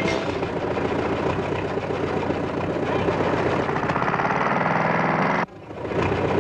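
Cartoon truck engine sound effect, a fast steady chugging putter; it cuts out suddenly about five and a half seconds in, then starts again.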